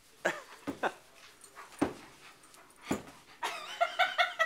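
Dogs play-wrestling: a few short, sharp barks about a second apart, then a quick run of high-pitched yips near the end.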